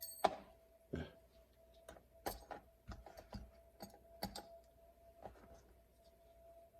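Scattered light clicks and taps of a custom Swiss Army knife being handled, its parts opened to show where the spare blades are stored. There are about a dozen clicks, louder in the first half and fainter toward the end.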